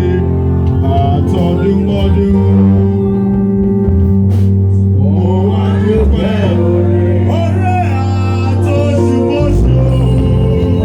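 Live praise music: a band with a steady bass line and guitar, and a voice singing over it.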